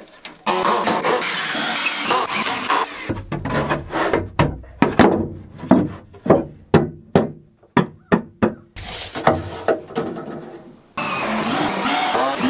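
A cordless drill driver running in spells as it drives pocket-hole screws into plywood, near the start and again near the end. In between comes a run of sharp wooden knocks as the plywood divider panels are set in place.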